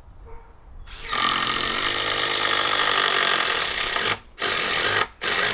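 Cordless impact driver driving a screw into a log: one long run of about three seconds, then two short bursts, each cutting off abruptly.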